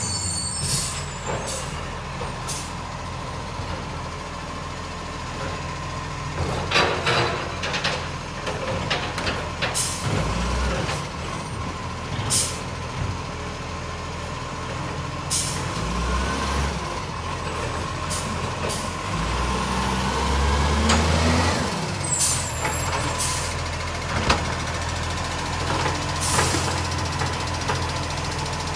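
Iveco side-loading garbage truck's diesel engine running and revving up at times as its automated arm lifts and empties wheelie bins. Short sharp air-brake hisses and knocks come several times along the way.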